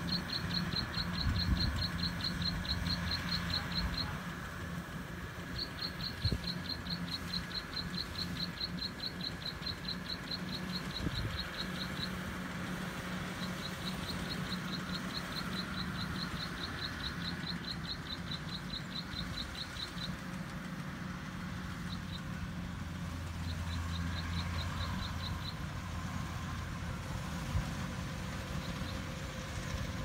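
Kubota DC-70 combine harvester's diesel engine running steadily at a distance while harvesting rice, a low even hum. Over it, a rapid high chirping at about four to five chirps a second comes in runs of several seconds with short breaks.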